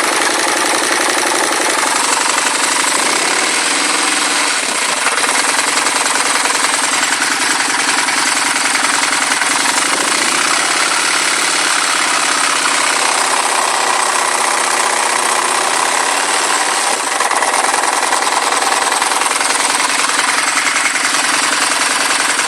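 Engine running with a loud, rapid knocking clatter over its hum. The engine is revved up briefly about three seconds in and again about ten seconds in. The owner questions whether this is an engine knock.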